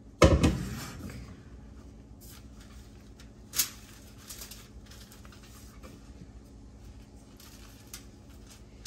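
Kitchen handling noises while minced meat is shaped into a roll on parchment paper: a heavy thump about a quarter second in, then quiet rustles and taps, with a sharper click about three and a half seconds in.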